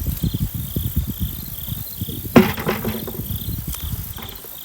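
Crickets chirping in a steady pulsing rhythm, about two to three chirps a second, under a low rumble. About halfway there is a sudden sharp sound with a brief pitched tail, the loudest moment.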